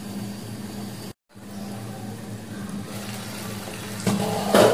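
Chicken simmering in spiced liquid in a covered pan: a steady bubbling hiss, broken by a brief gap of silence about a second in. Near the end comes a short, louder clatter.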